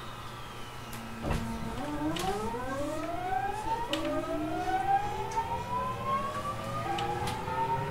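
GTO-thyristor VVVF inverter and traction motors of a JR East 209 series 3000 subseries motor car (MoHa 208) whining as the train accelerates away from a stop. A knock comes just over a second in, then several stacked tones climb steadily in pitch over a low rumble, jumping in pitch about 4 and 7 seconds in.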